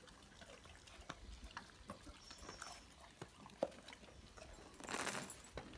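A dog eating meaty bones: faint, scattered chewing clicks, with a short rustling burst about five seconds in.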